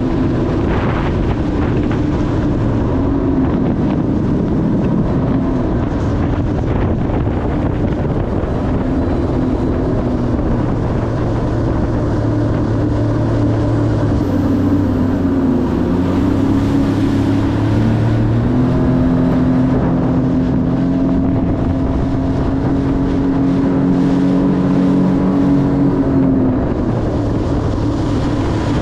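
Sea-Doo RXP 300 personal watercraft running at speed over choppy water: the steady drone of its supercharged 1630 cc engine, its note dipping and climbing again a few times as the throttle changes, over the rush of water and wind on the microphone.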